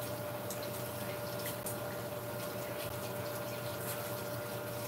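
Chopped tomatoes and garlic sizzling gently in a frying pan, a steady hiss with scattered faint crackles, over a constant low hum.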